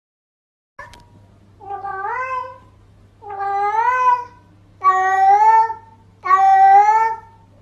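A domestic cat meowing loudly four times, each a long drawn-out call of about a second that rises and then holds. The calls' rhythm matches spoken phrases like 'look away' and 'don't move'.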